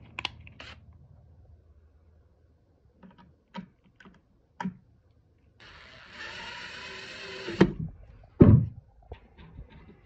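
A few light handling clicks, then a DeWalt cordless drill runs for about two seconds, driving a screw into the wooden birdhouse panel. Two heavy thumps follow right after it stops, the loudest sounds here.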